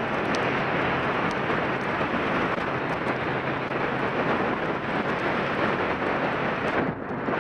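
Motorcycle riding with heavy wind rush on the microphone drowning out most of the engine, which is only faintly present underneath. The rush dips briefly near the end.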